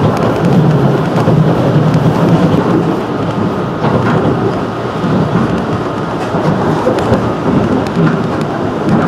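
Running noise of a JR 211 series electric train heard from inside the carriage: a loud, steady rumble of wheels on the track.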